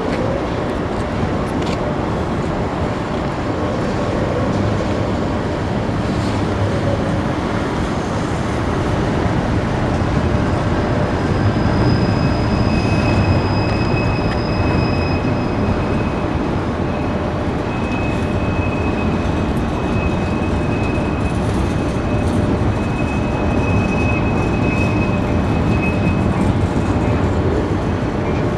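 Union Pacific freight train's cars rolling past with a steady rumble of wheels on rail. A thin high whine comes in near the middle and holds until shortly before the end.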